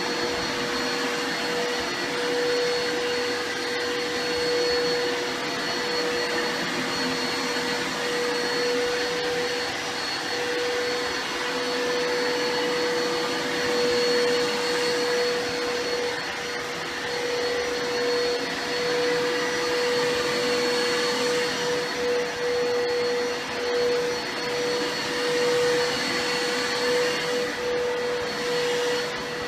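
Vacuum cleaner running steadily, a constant whining tone over its rushing air, its loudness swelling and dipping slightly as it works.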